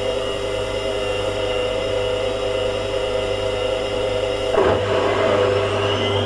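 Washing machine spinning and draining: a steady hum with several held whining tones. About four and a half seconds in the sound shifts with a brief surge, and near the end the whine starts to rise in pitch.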